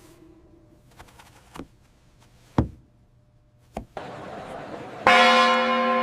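A few soft, scattered knocks, then a bell struck once about five seconds in, ringing on with a rich, slowly fading tone.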